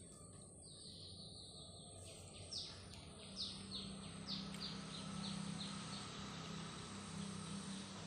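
Tangra fish frying in mustard oil in a karahi, a faint steady sizzle. Over it a bird calls: one long high note about a second in, then a run of short falling notes, about three a second.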